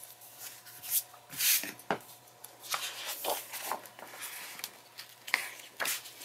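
Loose sheets of coloring-book paper rustling as they are handled, slid and laid flat by hand, in a string of short crackles; the loudest come about a second and a half in.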